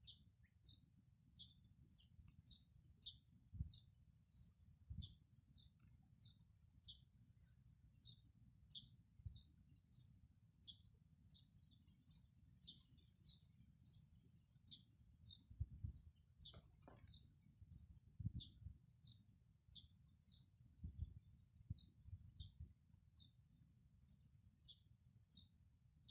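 A small bird chirping over and over, short high notes at an even pace of about two a second. Faint low rumble and a few soft thumps underneath.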